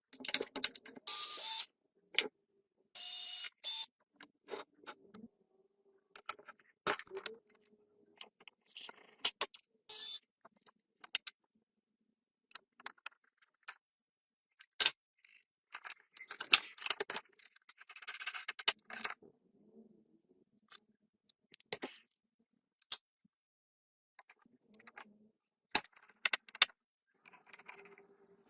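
Hand tools and metal parts of an old chainsaw clicking, clinking and scraping in short, irregular bursts with quiet gaps between.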